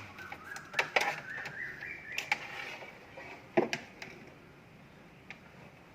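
Multimeter continuity tester chirping in short uneven beeps as its probes touch the defrost heater's terminals, with clicks of the probes and handling; the beeping shows the heater has continuity and is not burnt open. It dies away after about two seconds, leaving a few faint clicks.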